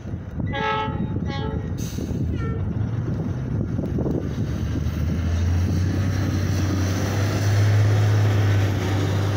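Nippon Sharyo electric multiple-unit train of the South Shore Line sounding two short horn blasts, then the rumble of the approaching train building steadily, with a low steady hum from about five seconds in.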